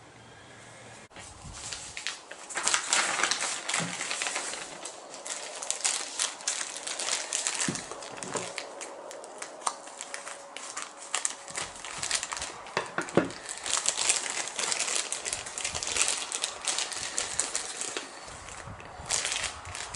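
Irregular rustling and crinkling with many small clicks and taps, which come and go in louder stretches.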